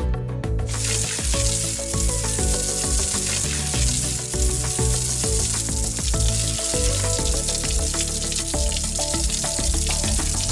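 Water sprinkling from a watering can's rose onto vegetables: a steady hiss of falling spray that starts about a second in, over background music.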